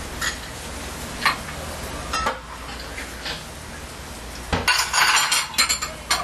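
Braising liquid bubbling at a steady simmer under a drop lid, with a few light clinks, then a louder run of clinks and splashes over the last second and a half as soy sauce is poured from a bottle into the boiling pot.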